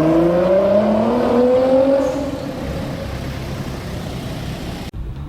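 Nissan R35 GT-R's twin-turbo V6 accelerating hard, its engine note rising steadily in pitch, then the driver lifts off about two seconds in and the sound falls to a steady rushing noise. The sound cuts off abruptly near the end.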